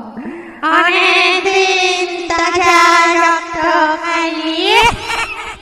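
Music with a high singing voice holding long, wavering notes, sliding up in pitch near the end.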